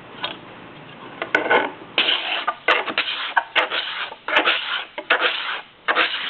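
Steel card scraper with a freshly burnished hook edge scraping the rough resawn surface of bubinga wood, taking shavings. Quick rasping strokes start about a second in and repeat about twice a second, around ten strokes in all.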